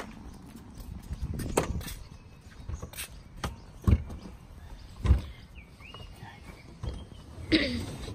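A handful of knocks and thumps as a removable rear seat is handled and lifted into a Mercedes-Benz A160 (W168), its frame bumping the car's floor and trim. Birds chirp faintly in the background.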